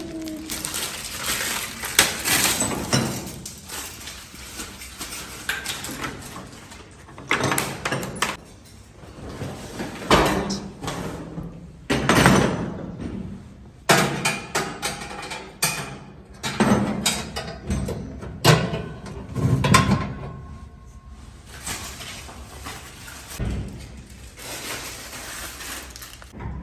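Irregular knocks, bumps and scraping from a freestanding cooker being unpacked and handled, coming in short bursts every second or two.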